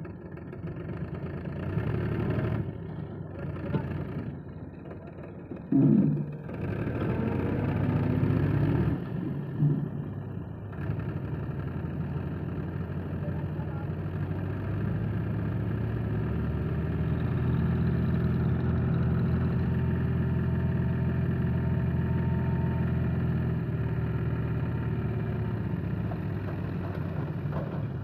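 Tractor diesel engine running steadily, powering the hydraulic tipper that raises the trailer to dump its load of soil. A short, louder noise stands out about six seconds in.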